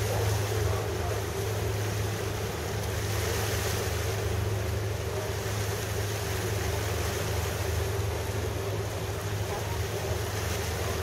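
Steady low engine drone of a ship or boat, with water rushing and wind buffeting the microphone.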